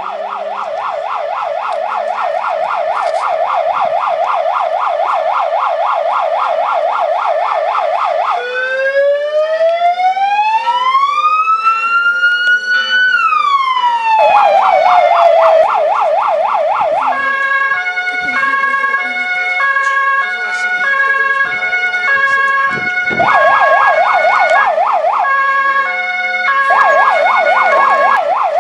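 Loud electronic emergency-vehicle siren sounding without a break and switching between patterns: a fast warbling yelp, then a slow wail that climbs and falls away about a third of the way in, then the yelp again, and in the second half an alternating two-tone hi-lo pattern broken by short stretches of yelp.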